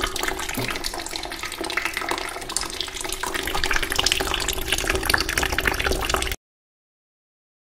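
Liquid pouring and splashing onto a laptop keyboard: a steady watery splatter that stops abruptly about six seconds in.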